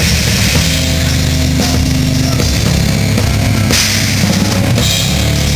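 Live heavy rock band playing loudly: a pounding drum kit with crashing cymbals over a thick, heavy low end of bass and guitar.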